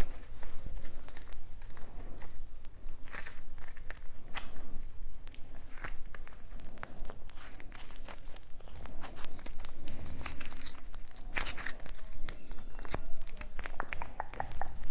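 Close-up crinkling and crackling of plastic packaging being handled and torn open, with many sharp clicks.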